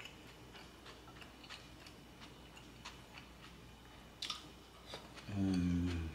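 Quiet eating sounds: faint mouth clicks and chewing, with a sharper click a little after four seconds as food goes into the mouth. Near the end comes a short, closed-mouth hummed 'mmm' of enjoyment, the loudest sound here.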